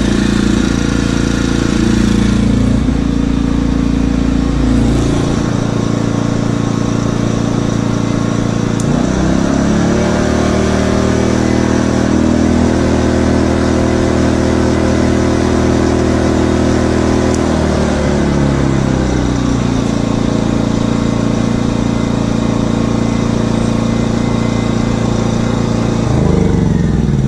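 WEN 56200i 2000-watt inverter generator's small four-stroke engine running. Its engine speed steps up about a third of the way in, holds higher for several seconds, then settles back to a lower steady speed. A falling whine sets in just before the end.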